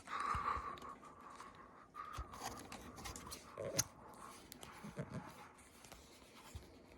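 Casablanca Four Seasons III ceiling fan running, under scattered clicks and crackles of handling close to the microphone.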